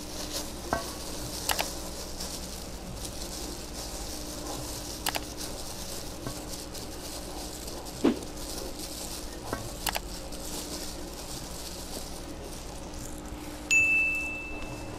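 Light, scattered clicks and taps of food being scooped and shaped by hand in a stainless steel bowl, over a steady low hum. Near the end a single high bell ding from a notification-bell sound effect rings out and fades.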